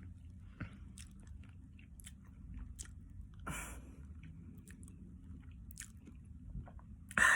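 A person chewing Cheetos Flamin' Hot popcorn close to the microphone: scattered small crunches and mouth clicks, with a louder noise about halfway through and again just before the end.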